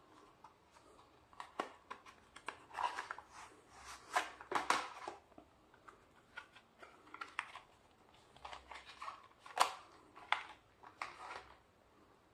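Blu-ray packaging and paper inserts being handled: scattered rustles, clicks and taps, with a denser cluster about four seconds in and a sharp click near ten seconds.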